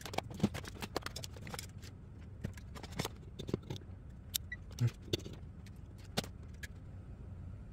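Irregular light clicks and taps of multimeter test probes and test leads being handled and pressed against battery terminals.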